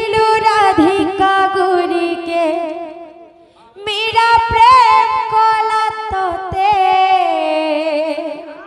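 A woman singing a Sambalpuri devotional kirtan through a microphone: two long, held, ornamented phrases with a short break between them about three and a half seconds in. Irregular low drum beats sound under the voice.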